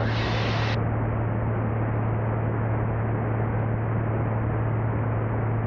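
In-flight cockpit noise of a Rocket single-engine piston airplane: a steady engine-and-propeller drone with a constant low hum under a hiss of wind. Just under a second in, the highest part of the hiss drops away and the noise turns duller.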